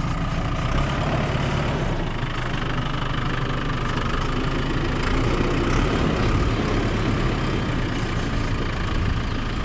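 An engine idling steadily at an even level.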